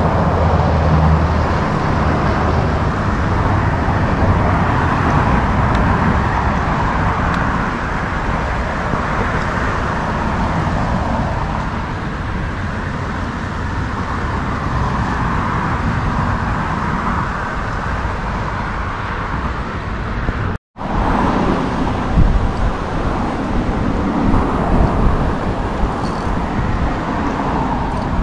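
Steady wash of road traffic noise from cars crossing the bridge, with low rumbles of wind on the microphone. It cuts out for an instant about two-thirds of the way through.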